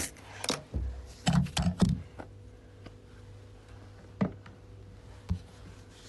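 Handling noise of a phone being moved about: a cluster of rubbing bumps in the first two seconds, then two single knocks later, over a faint steady hum.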